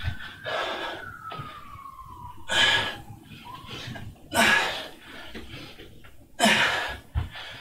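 A man's forceful exhales, three sharp breaths about two seconds apart, as he works through bird-dog reps. Underneath, during the first couple of seconds, a faint distant siren slowly rises and falls in pitch.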